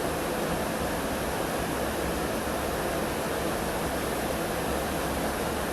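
Steady rush of moving river water, an even, unbroken noise with no distinct events.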